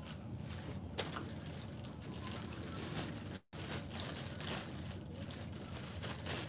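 Steady low room noise with a few faint clicks, about one and three seconds in, from a stroller's rear wheel being fitted onto its axle. The sound drops out for an instant about halfway.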